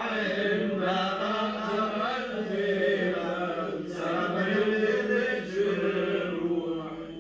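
Men's voices chanting a Lebanese zajal refrain in long, drawn-out sung lines, the chorus repeating the poet's last verse.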